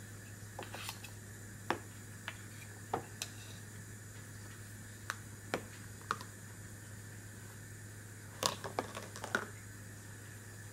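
Light plastic clicks and taps as clear plastic bowls are handled and knocked against a plastic high-chair tray, scattered sparsely with a quick cluster of taps about three-quarters of the way through.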